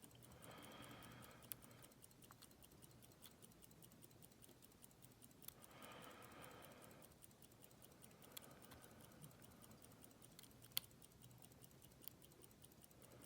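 Faint, sparse clicks and light scraping of a lock pick and tension wrench working the pin stack of a Master Lock lockout padlock, with one sharper click about eleven seconds in.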